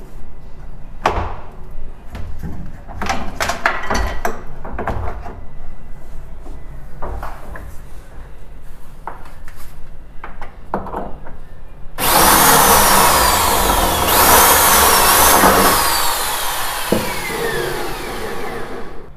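Scattered clicks and knocks of hardware being handled, then, about twelve seconds in, a power drill runs for about seven seconds at the bottom L hinge of a wooden cabinet door, its whine falling in pitch, briefly rising, then falling again.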